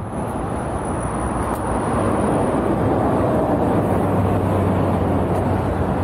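Steady road-vehicle noise, a rushing sound with a low engine hum, growing louder about two seconds in and then holding.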